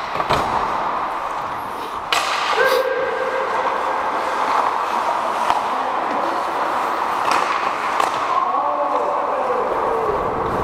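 Ice hockey in play: skates scraping and carving the ice, with sharp stick and puck knocks every second or two. A brief held tone about two and a half seconds in, and faint shouts late on.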